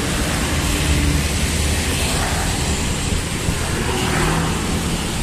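Street traffic driving past close by: a Suzuki Carry angkot minibus and motor scooters with their engines running, over a steady rumble of traffic.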